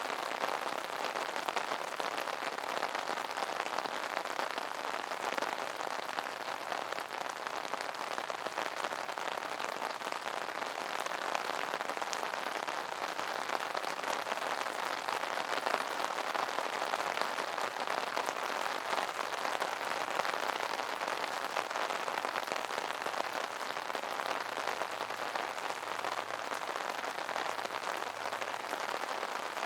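Steady rain falling on an umbrella, a dense continuous patter of drops striking the taut canopy.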